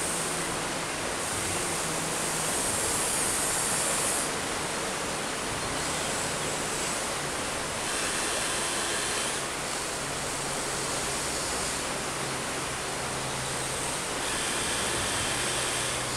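Steady rushing of a nearby river. Over it, the whine of the RC excavator's electric motors comes and goes several times as its boom and bucket move.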